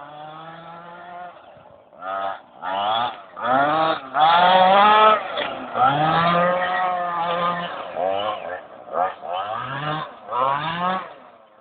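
Radio-controlled car's motor whining in repeated bursts, the pitch rising as it speeds up and falling as it eases off.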